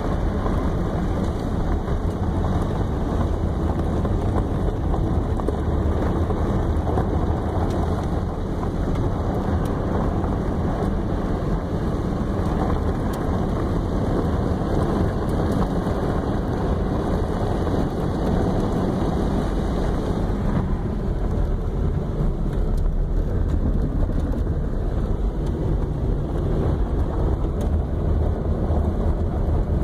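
Steady road and wind noise from a car driving on a gravel road, heard from inside the car: a constant low rumble of tyres on gravel with wind, turning slightly duller about two-thirds of the way in.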